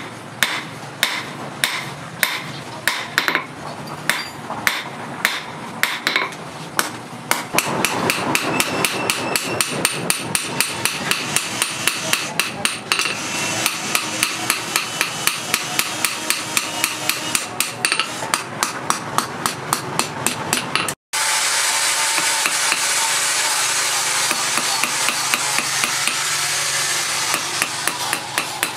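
Hand hammer striking a knife blade of sprocket steel on a steel post anvil: sharp metallic blows, about two or three a second at first, then much faster and closer together from about seven seconds in. The sound drops out for an instant about two-thirds through, and after that the blows carry on over a steady noise.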